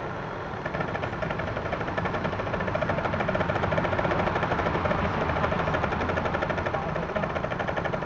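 Radio-controlled scale off-road truck's motor and gears buzzing as it crawls, a fast rattly whir that picks up about a second in and holds strong.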